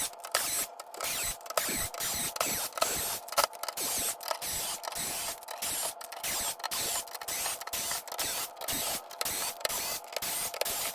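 Hand tools working on a PS5's metal motherboard shield: rapid, irregular mechanical clicking and rasping as the shield is taken off.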